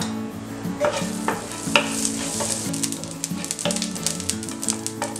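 Mustard, cumin and fennel seeds sizzling in hot oil and butter, with many short sharp crackles as the seeds pop, stirred with a wooden spatula.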